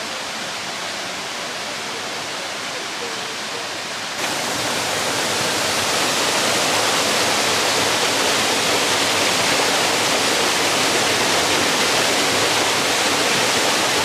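Aira Force waterfall: water plunging into a rocky gorge and churning below, a steady rushing hiss. About four seconds in it jumps louder and brighter, the fall heard close up.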